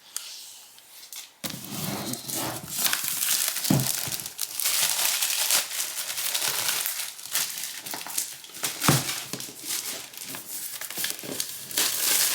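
Packaging on a MacBook Pro box being crinkled and torn off as the box is unwrapped by hand, an irregular rustling with a couple of soft knocks.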